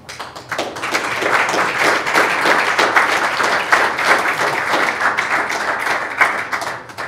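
Audience applauding, many hands clapping together; it builds over the first second and stops fairly abruptly near the end.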